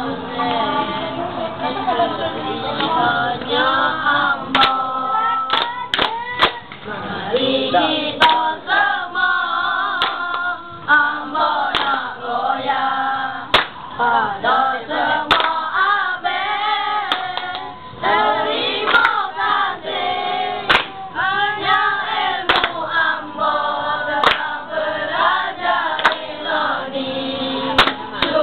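A group of boys singing a dikir barat chorus together, a Malay call-and-response choral form. Sharp hand claps fall in time every second or two.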